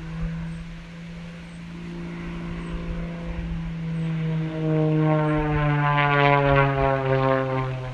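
Light propeller aircraft flying past overhead. Its engine and propeller drone grows louder from about halfway through and falls in pitch near the end as the plane passes.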